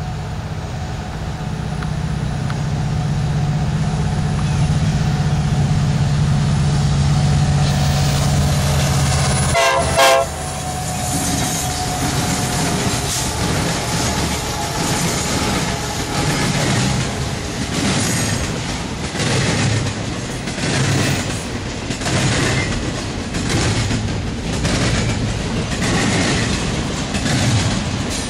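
A four-unit diesel locomotive consist, EMD SD70MACs and GE AC4400CWs, runs past under power with its engines loud. The lead unit gives a short horn blast about ten seconds in. Intermodal railcars follow, rolling by with a repeated clatter of wheels over rail joints.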